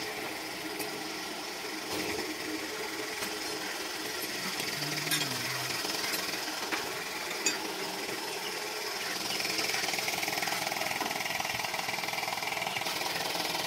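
A machine running steadily with a fast rattle, with a few sharp clicks over it; it grows a little louder about two-thirds of the way through.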